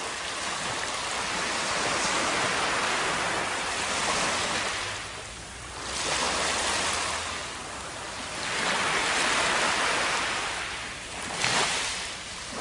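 Shallow surf washing up over sand, the rush swelling and fading in about four surges a few seconds apart, with a brief sharper wash near the end.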